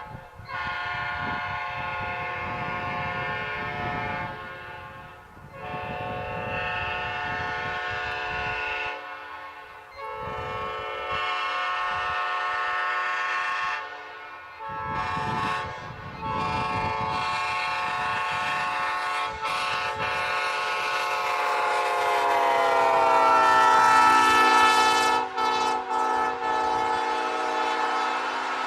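Locomotive air horn blown on compressed air, sounding in four blasts. The first three are a few seconds each; the last is long, shifts pitch partway through and grows loudest near the end.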